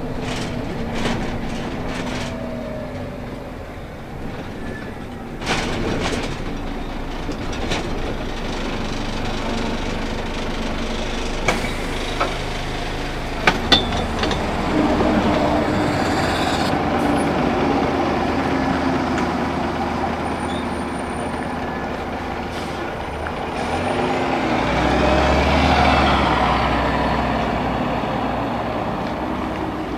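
Diesel engine of a Scania L94UB 6x2 city bus running steadily, heard first from inside the bus and then from beside it. There are a few sharp clicks about halfway through. A louder low rumble swells near the end, as the bus pulls away.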